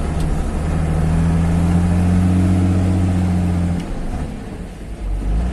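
Mercedes-Benz 1513 truck's six-cylinder diesel engine pulling steadily under acceleration, heard from inside the cab. About four seconds in the engine note drops away and quietens for about a second, then picks up again near the end.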